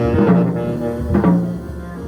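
Jazz quartet of saxophone, piano, double bass and drums playing, with the double bass prominent under sustained notes.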